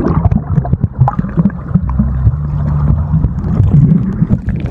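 Muffled underwater sound picked up by a phone in a waterproof pouch held beneath the surface of a swimming pool: a low rumble with bubbling and scattered knocks, the higher sounds cut off.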